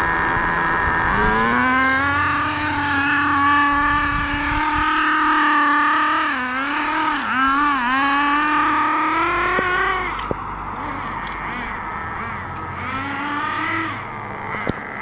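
Small two-stroke engine of a homemade RC drag car revving up about a second in and running at high revs, its pitch wavering up and down between about six and eight seconds. After about ten seconds it drops in pitch and turns fainter, with a few short revs near the end.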